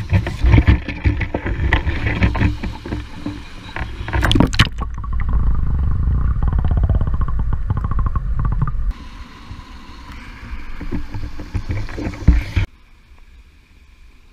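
Stream water heard from a camera held underwater: a loud, muffled low rushing of the current with knocks and scrapes of the camera. It cuts off abruptly near the end to faint open-air ambience.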